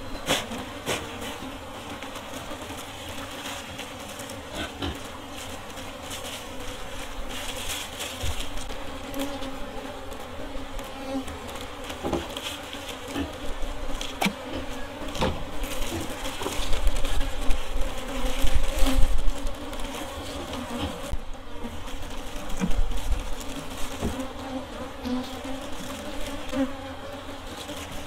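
Honey bees buzzing in a steady hum around honeycomb being cut from a log hive, with scattered small clicks from the comb and knife being handled. A low rumble comes in about two-thirds of the way through.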